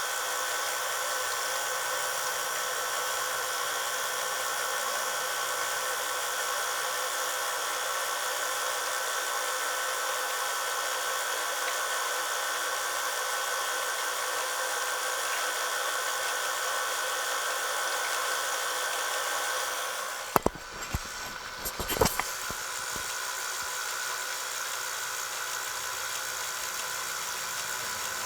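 Solidex Model 829 Beta tape rewinder running, a steady whir as it rewinds a Beta cassette. About twenty seconds in the whir briefly drops away under a few sharp clicks and knocks, then carries on with a slightly different tone.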